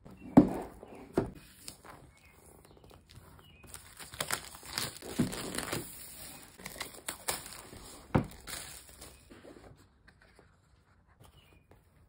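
Clear plastic shrink wrap being torn and peeled off a cardboard keyboard box, crinkling and crackling, with a few sharp knocks as the box is handled, the loudest just after the start.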